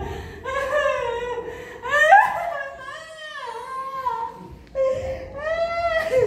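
A high-pitched voice crying and wailing in long cries that rise and fall in pitch, with short breaks between them.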